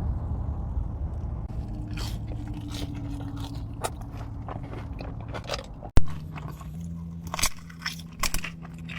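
A person biting into and chewing crunchy food close to the microphone, with a scatter of crisp crunches over a low steady hum. There is a sharp click about six seconds in.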